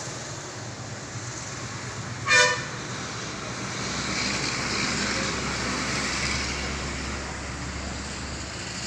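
Steady road traffic noise, with one short vehicle horn toot about two seconds in that is the loudest sound; the traffic swells for a few seconds around the middle.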